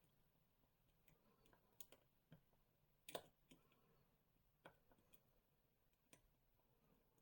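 Faint, irregular small clicks of a lock pick and tension tool working the pins inside an EVVA Akura 44 dimple lock, a handful of separate ticks with the sharpest about three seconds in.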